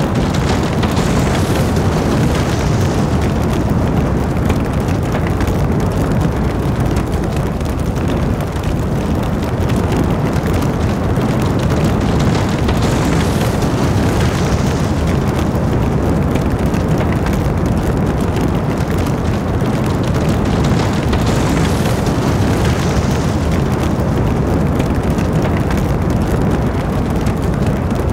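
Deep, steady roar of a violent F5 tornado's winds, loud and unbroken throughout.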